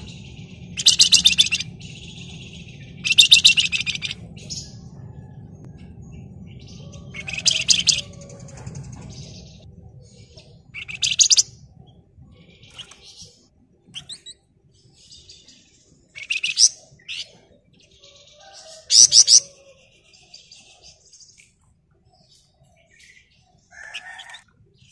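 Flamboyan (wergan Jawa) songbird calling in short, rapid, buzzy chattering trills. There are about six loud bursts, each about half a second long, with fainter chirps between them. A low hum sits under the first third.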